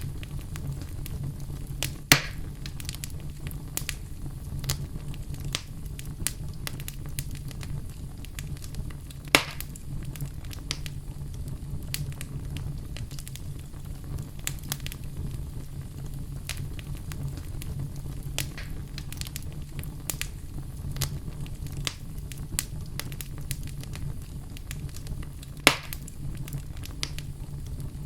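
Wood fire burning in a fireplace: a steady low rumble of flames with scattered crackles and three louder pops from the burning logs.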